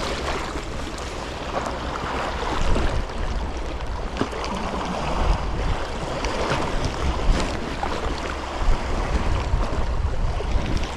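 Wind buffeting the microphone over small waves lapping against a rocky sea shore.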